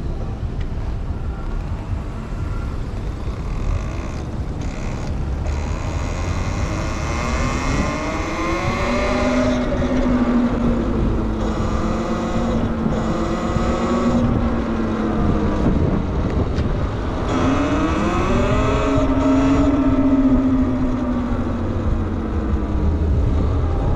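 Talaria Sting R MX4 electric dirt bike's motor whining, rising in pitch as the bike accelerates, holding, then slowly falling away, twice over. A low wind rumble on the microphone runs underneath.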